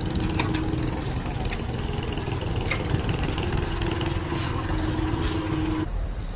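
An engine running steadily at idle, with a few sharp metallic clicks over it. The sound changes abruptly near the end.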